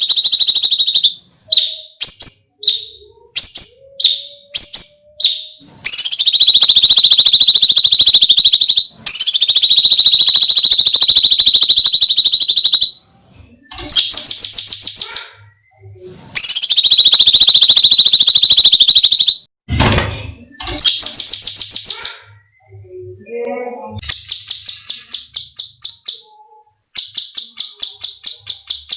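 Cucak cungkok singing its shrill, scream-like song: a run of short rising whistled notes, then long piercing trills of a few seconds each, broken by short pauses, and towards the end a fast series of rapidly repeated notes. A brief low thump comes about twenty seconds in.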